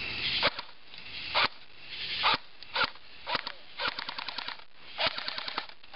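Airsoft gun firing at a target: a few single sharp cracks, then fast strings of shots at about ten a second.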